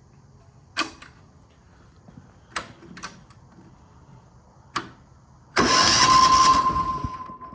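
A few sharp clicks, then a single-cylinder air-cooled diesel engine (a Chinese copy of the Yanmar L100) cranked over briefly near the end with its decompression lever down, so it spins without firing, to push fuel up to a cracked injector line for bleeding. A steady whine runs on after the cranking noise dies down.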